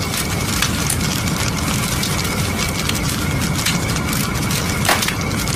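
Fire sound effect: a steady low rumble with dense crackling and snapping, and one sharper crack near the end.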